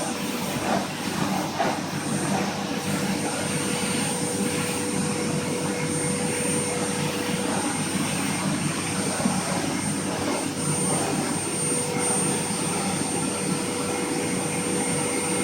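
Vacuum cleaner running steadily, its motor giving an even rushing noise with a constant high whine.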